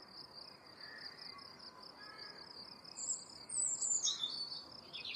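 Steady, high-pitched, pulsing insect trill, with a bird call that falls in pitch about three seconds in.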